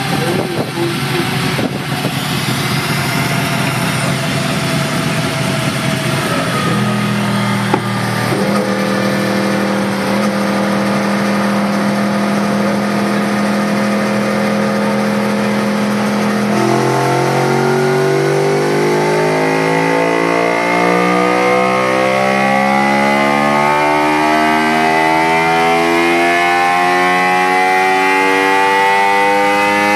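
Yamaha R1's inline-four engine running on a chassis dyno. It revs unevenly for the first few seconds, is held at steady revs for about ten seconds, then climbs in one long smooth rise in revs through the dyno pull.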